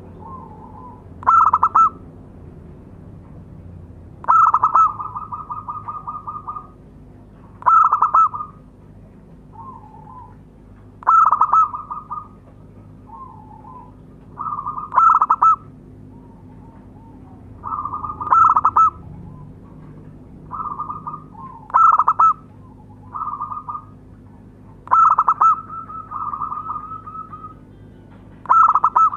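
Zebra dove (perkutut) cooing its calling song: nine loud calls about every three and a half seconds. Several trail into a quick run of repeated notes, with softer coos in between.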